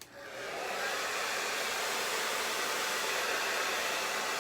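Handheld hair dryer blowing steadily, drying a wet stocking cap on the head. It rises to full strength over about the first second.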